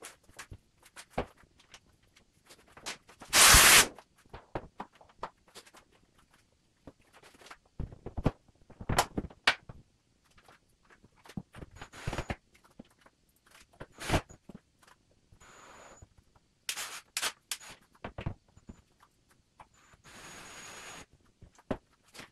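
Scattered knocks, clicks and scrapes of hands-on work fitting kitchen wall cabinets, with a short loud rush of noise about three and a half seconds in and a second, quieter one near the end.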